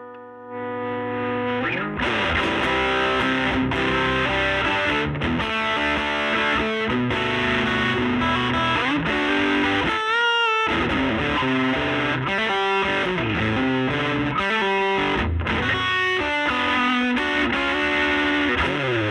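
Overdriven electric guitar with P90 pickups through the Laney Lionheart L5 Studio amp's gain channel and a 15-inch Jensen Alnico speaker. It plays a run of driven chords and lead lines, with a single held note with vibrato about ten seconds in.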